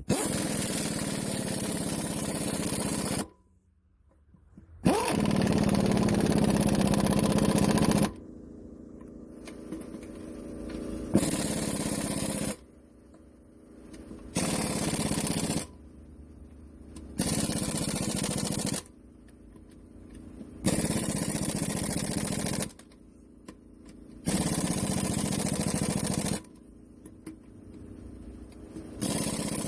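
A power tool motor run in about eight short trigger bursts, each one to three seconds long and spinning up at the start, as nuts and washers are run down onto wheel studs to lock the wheel caps on.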